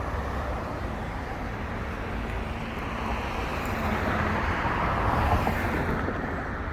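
Road traffic noise, an even rush of car and tyre sound that swells to its loudest about five seconds in and eases off near the end.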